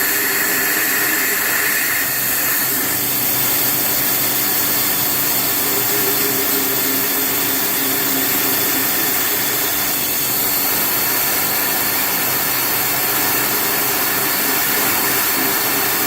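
Haas TM-2P CNC mill's spindle running a 1/8-inch four-flute end mill, circle-interpolating holes in a rifle action, with a steady high whine over a constant machine hiss.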